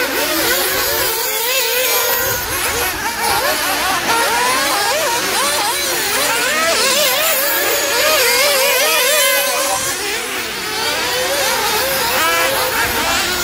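Several nitro RC off-road race cars' small two-stroke glow-fuel engines revving together. Their high-pitched whines rise and fall constantly as the cars accelerate and back off around the track.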